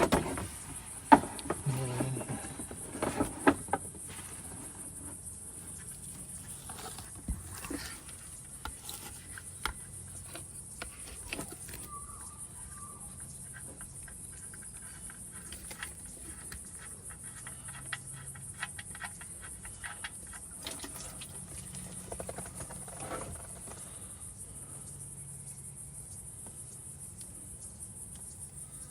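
Insects chirping steadily at a high pitch, with scattered clicks and knocks that are loudest in the first few seconds.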